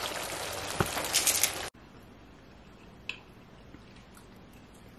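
Fish thokku gravy bubbling and sizzling in a frying pan, with a few sharp clicks. The sound cuts off abruptly under two seconds in, leaving quiet room tone with one light tap.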